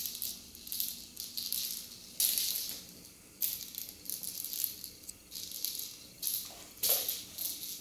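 A small rattle ball toy rolling and rattling across a hardwood floor as a kitten bats it, in repeated short bursts of rattling with brief pauses between.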